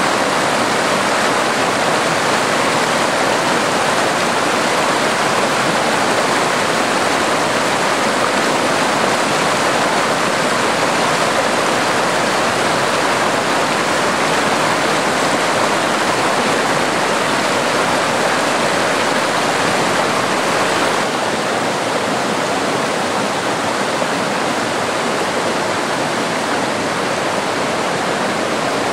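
Fast-running stream water rushing steadily, the stream swollen with runoff from heavy storm rain. It gets a little quieter about two-thirds of the way through.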